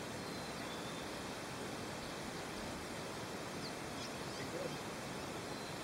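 Steady, even outdoor background hiss with no clear event in it, and a few faint short high chirps about four seconds in.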